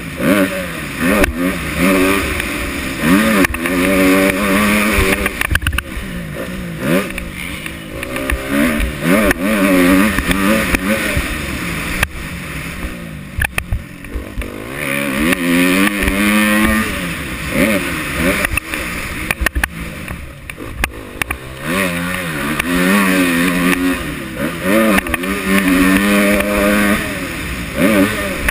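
Dirt bike engine revving hard and dropping back again and again, its pitch climbing and falling with each burst of throttle, with wind rushing over the bike-mounted microphone and scattered knocks from the bumps.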